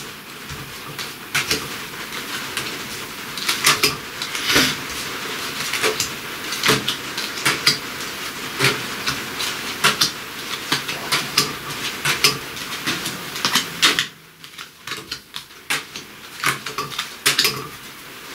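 Dixit playing cards being dealt one by one onto a cloth-covered table: irregular light taps and slaps as each card lands and is slid into place, with the deck handled between them. A steady hiss lies under the taps and stops abruptly about fourteen seconds in.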